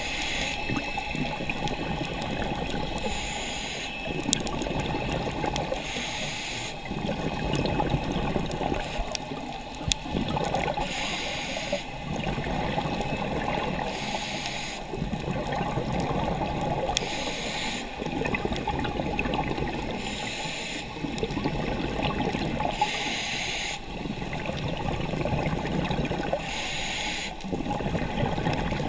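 Scuba diver breathing through a regulator underwater: a short hiss of about a second every three to four seconds, with bubbly gurgling between.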